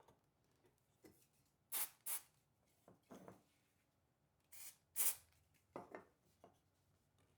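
Hand tools working wood: two pairs of short, sharp scraping strokes with softer knocks and taps between them.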